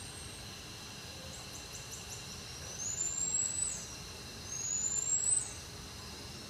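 Two high whistled calls rising in pitch, each about a second long with a quick drop at the end, after a short run of faint quick chirps, over a steady background hum.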